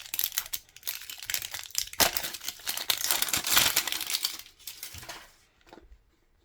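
Plastic packaging of a mystery toy ball being torn open and crinkled by hand: a dense run of crackling that dies away about a second before the end.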